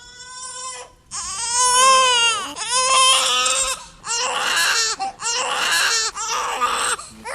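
Infant crying: a string of high, pitched wails, about six in a row, each broken off by a short gasp.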